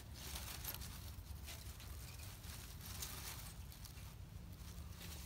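Dry oak leaves rustling and crackling as hands press and shuffle through a heap of them.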